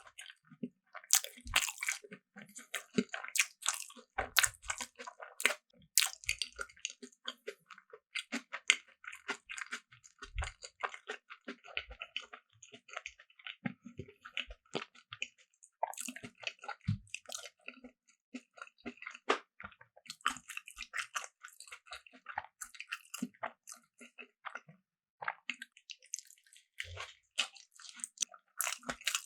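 A person biting and chewing food close to the microphone, with a quick, irregular stream of small clicks and smacks from the mouth.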